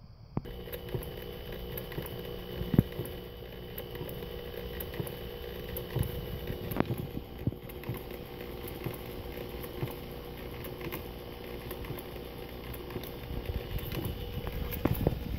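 Drill Master 3/8-inch variable-speed corded electric drill starting about half a second in and running steadily. A Fitbit band taped to its chuck spins and taps against a fire extinguisher, in clicks that grow louder and busier near the end.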